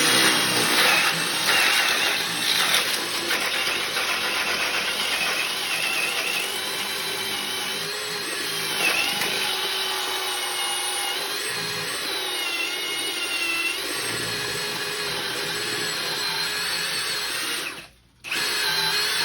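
Ridgid High Torque brushless hammer drill in second speed, boring a hole with a 2-inch Diablo Forstner bit. The motor whines steadily, its pitch wavering as the bit loads. It stops near the end, then runs again briefly.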